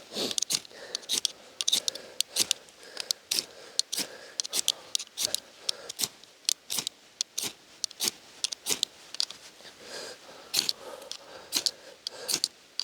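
Quick, irregular run of short, sharp scrapes and clicks, about two or three a second, from hand work on a fire-starting kit's tinder and striker.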